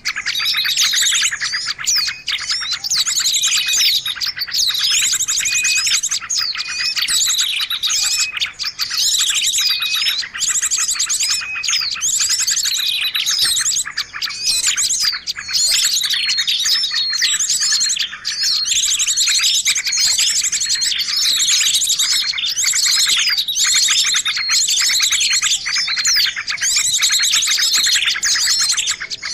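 A dense, continuous chorus of small birds chirping and trilling in high, rapid, overlapping phrases, with only brief dips. It is a lure recording of small-bird calls, meant to draw wild birds in.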